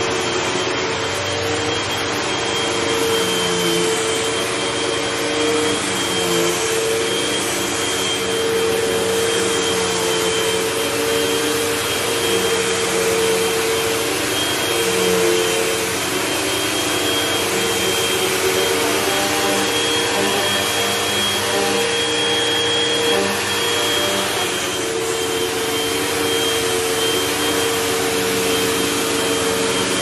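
Red bagless upright vacuum cleaner running over carpet: a steady motor hum with a thin high whine above it, the tone wavering slightly as it is pushed back and forth.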